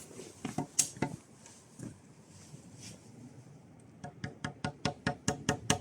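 Hammering: a few scattered knocks, then about four seconds in a fast, even run of ringing blows, about four or five a second.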